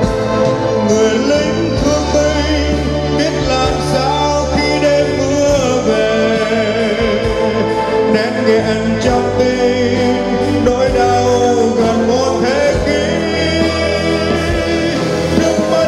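Live band music with a singer carrying a sustained melody over a steady bass line.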